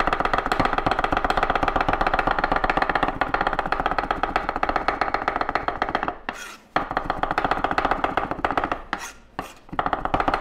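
Chef's knife mincing garlic on a wooden cutting board: a fast, even run of blade strikes on the wood, breaking off briefly about six seconds in and again near nine seconds.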